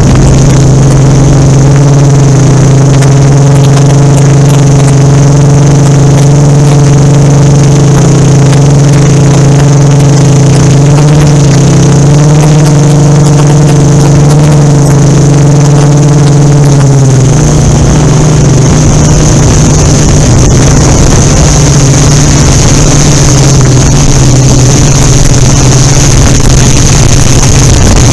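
Yuneec Typhoon Q500 4K quadcopter's four motors and stock propellers droning steadily, picked up close through the drone camera's unfiltered microphone with wind rumble. The pitch of the drone shifts about two-thirds of the way through as the throttle changes.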